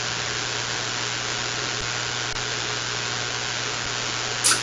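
Steady static hiss of an open CB channel from the receiver, with a low hum under it and a short high chirp near the end.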